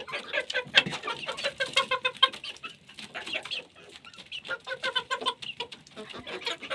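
A few chickens clucking in short, busy calls as they feed, mixed with many quick taps of beaks pecking.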